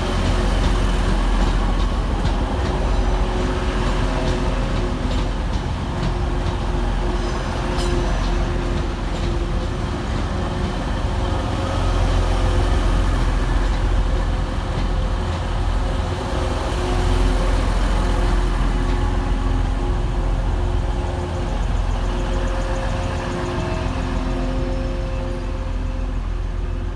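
Diesel multiple-unit trains running at the platform: a steady engine sound with a few held humming tones, a little louder at times, without letting up.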